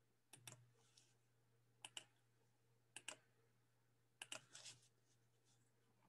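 Faint computer mouse clicks in quick pairs, like double-clicks, four times over about five seconds, against near silence.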